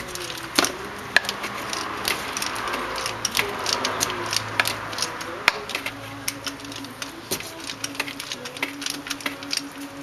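Ratchet wrench clicking in quick, uneven runs as it turns a 5/8 spark plug socket on an extension to back a spark plug out of the cylinder head.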